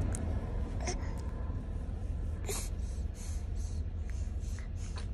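A baby feeding from a bottle, with soft sucking and breathing and a few short sharp clicks, about a second in, halfway through and near the end. Under it runs the steady low rumble of a car's cabin.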